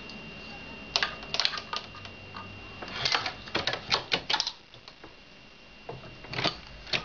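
Hornady 366 Auto shotshell reloading press being worked: bursts of sharp metal clicks and clacks from its handle stroke and stations, in three quick clusters.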